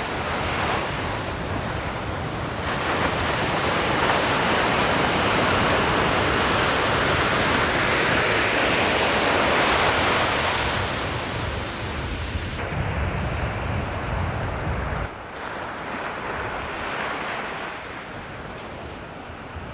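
Ocean surf breaking and washing up the beach, swelling to its loudest about halfway through and then easing off. Wind buffets the microphone with a low rumble that stops suddenly near the end.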